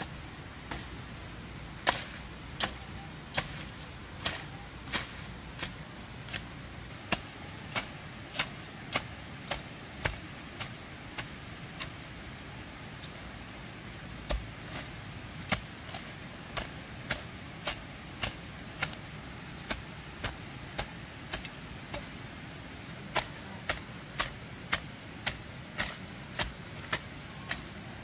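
Regular sharp knocks, about three every two seconds, repeated steadily like strokes of a tool striking something.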